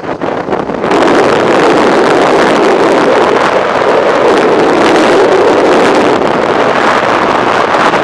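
Strong wind buffeting a microphone mounted on a moving motorcycle: a few gusty surges, then a steady loud rush from about a second in.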